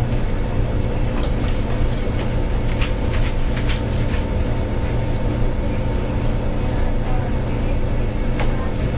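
Steady low hum throughout, with a few faint clicks and taps between about one and three and a half seconds in as a knife works through the leg joint of a raw chicken.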